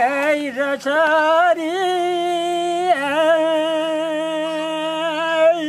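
Elderly man singing a song on his own, drawing out long wavering notes: a higher held note, then a lower one sustained for over two and a half seconds before he stops.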